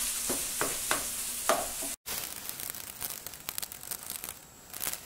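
Raw ground beef sizzling in a nonstick skillet while a wooden spatula breaks it up and stirs it, with several scraping knocks against the pan in the first two seconds. The sound cuts out for an instant about two seconds in, then the sizzle goes on quieter with faint crackling.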